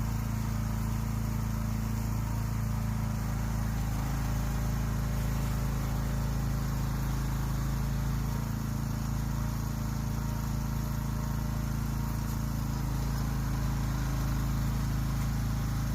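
A steady low mechanical hum made of a few held low tones, running evenly without change.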